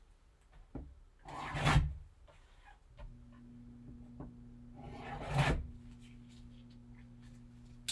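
Sealed card box being handled and opened: two rubbing, scraping swishes of cardboard and wrapping, with a low steady hum starting about three seconds in and a small click at the end.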